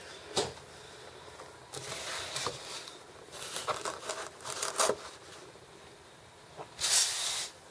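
Handling noise from a clear plastic deli cup being lifted and set down into a styrofoam-lined shipping box: scattered clicks, crinkling and scraping of plastic against foam, with a louder rustle for about half a second near the end.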